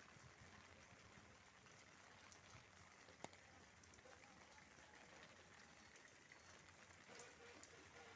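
Faint steady rain, with scattered drops ticking and one sharper tick about three seconds in.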